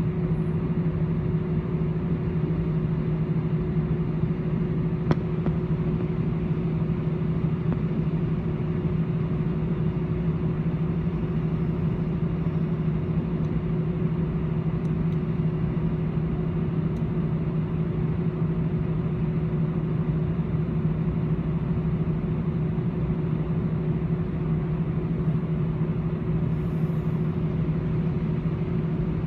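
Steady cabin drone of an Airbus A318-111's CFM56 jet engines at idle during taxi, heard inside the cabin: an even low hum with a fainter higher tone over a rushing noise.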